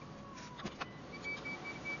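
A few sharp clicks, then from about a second in a steady-pitched electronic beeping, about five beeps a second.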